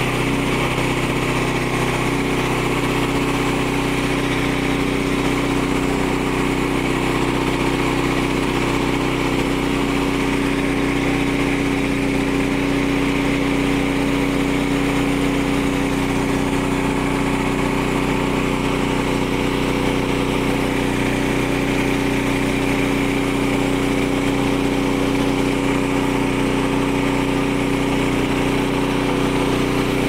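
Frontier OS23 portable bandsaw mill running steadily, its small petrol engine turning the band blade as the blade cuts through a log under the operator's push.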